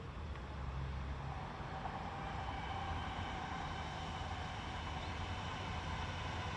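Road traffic: a steady low rumble of vehicles, with one growing louder from about a second and a half in.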